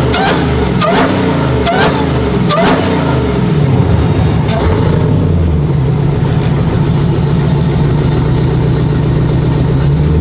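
Supercharged V8 engine revved in quick blips, about one a second, with a rising whine on each, then settling into a steady run about five seconds in.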